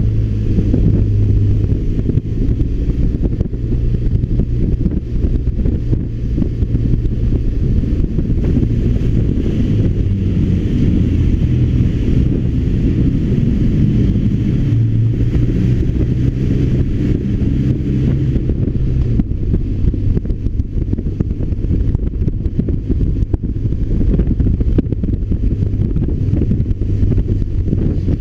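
BMW R1200RT's boxer-twin engine running on the move, its low hum shifting in pitch through the middle as the speed changes, with wind noise on the microphone.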